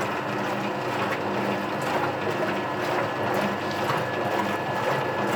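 Kelvinator top-loading automatic washing machine running its wash cycle: a steady motor hum and gear drive churning the water, swelling about once a second. It runs because the door-switch wires have been bridged, the door switch's push button being faulty.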